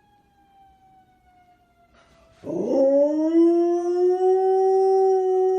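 A dog howling: one long howl starting about two and a half seconds in, rising in pitch at the start and then held steady. A faint falling tone is heard before it.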